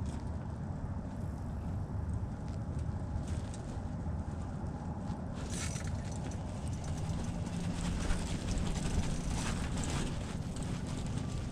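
Strong wind buffeting the microphone, a steady low rumble, with scattered light clicks and crackles in the second half.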